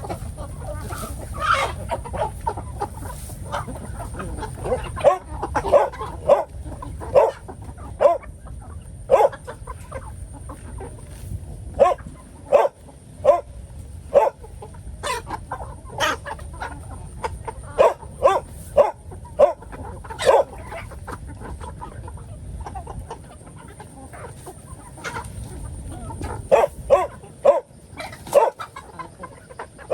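Chickens clucking, with many short calls coming irregularly throughout, over a steady low rumble.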